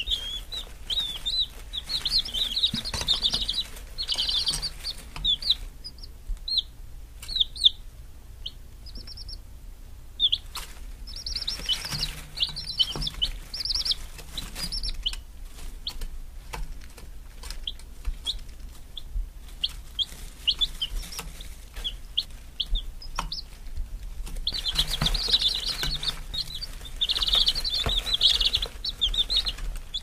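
Chicks (baby chickens) peeping: many short, high peeps, thick and overlapping in three busy stretches, sparser and scattered in between.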